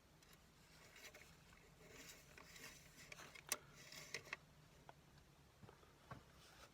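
Near silence, with faint scattered clicks and light rustling and one sharper click about three and a half seconds in.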